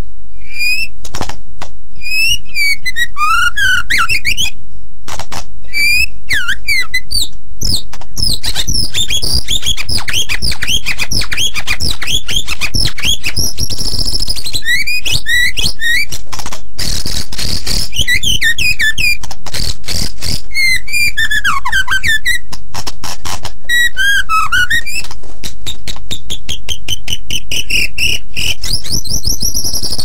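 White-rumped shama (murai batu) in full, nonstop song. It gives rapid, varied whistled phrases with sweeping rising and falling notes, quick trills and sharp clicks, packed closely together without pause.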